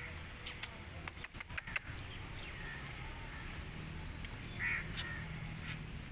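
A quick run of sharp clicks, then a kitten's short meow about two-thirds of the way through.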